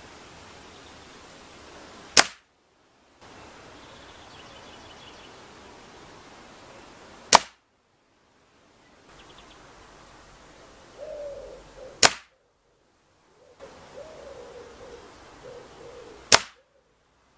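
Four sharp shots from a Weihrauch HW35 .177 break-barrel spring air rifle, about four to five seconds apart.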